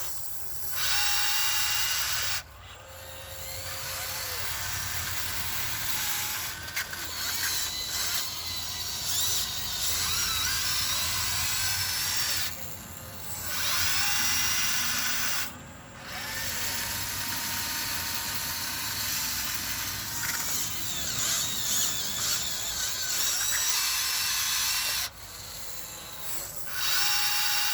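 Huina 1599 RC excavator's electric motors and gearboxes whirring with a high-pitched whine, running in spells of a few seconds to several seconds and pausing briefly several times as different functions are worked.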